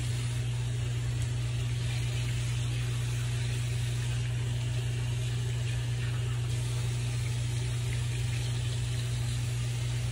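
Sink tap running steadily as hot water is used to rinse cleanser off the face, over a steady low hum.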